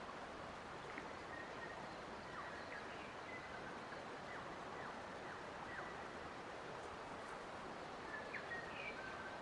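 Forest ambience: a steady rushing hiss with faint birds calling over it, brief chirps and quick falling calls scattered through, a small cluster near the end.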